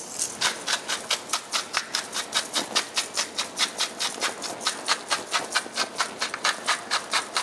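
Hand-twisted seasoning mill grinding over raw pheasant breasts: a steady run of crunching clicks, about four a second.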